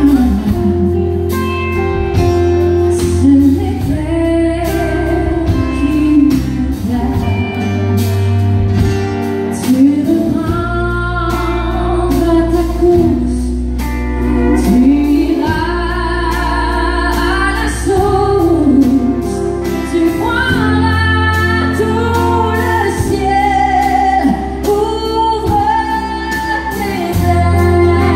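Live country band playing through a PA: a woman sings lead over acoustic and electric guitars, bass and drums.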